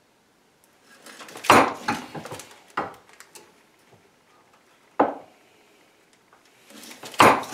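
Hand crimping tool clamped in a bench vise, clunking and clattering as its handle is worked to crimp an aluminium double ferrule onto steel snare cable. There are four metallic clunks, the loudest about a second and a half in.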